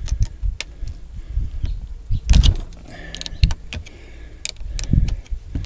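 Scattered metal clicks and knocks of a wrench and parts being handled while unbolting the electric power steering motor from a Chevy HHR steering column, with one louder clatter about two and a half seconds in.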